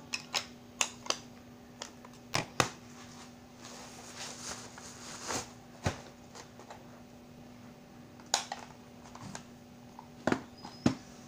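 Plastic cassette tape cases clacking as they are handled and set down on a counter: about a dozen sharp clicks and knocks at uneven intervals, with some plastic rustling around the middle, over a steady low hum.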